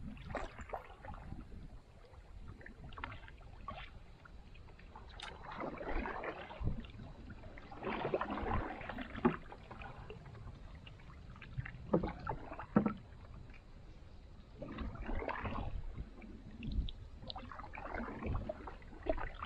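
Canoe paddles dipping and pulling through the water, a splashing gurgle with each stroke every few seconds.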